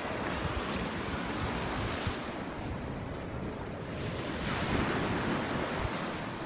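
Ocean surf washing up the beach, with wind buffeting the microphone. The wash swells a little about four and a half seconds in.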